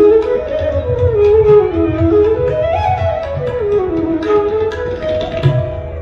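Background instrumental music in an Indian classical style: a flute melody gliding up and down over hand-drum strokes, likely tabla.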